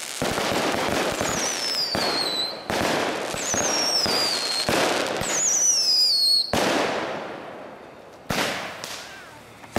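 Aerial fireworks going off in quick succession: sharp bangs of bursting shells over crackling, with three high whistles that each fall in pitch over about a second. It quietens near the end until one more bang.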